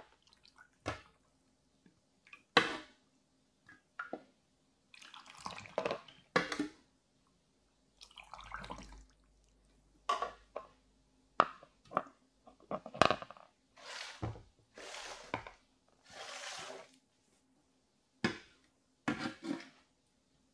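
A metal ladle scooping brine from an aluminium basin and pouring it through a plastic funnel into glass jars of cucumbers: several short pours of liquid, broken by clinks and scrapes of the ladle against the basin and funnel.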